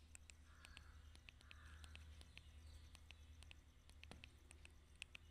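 Near silence: a faint steady low hum with scattered faint ticks.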